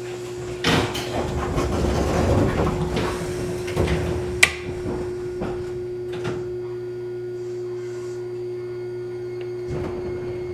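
Electric commuter train standing at a station: a steady hum from its onboard equipment, with a few seconds of noisy clattering about a second in, a sharp click near the middle and a low thump near the end.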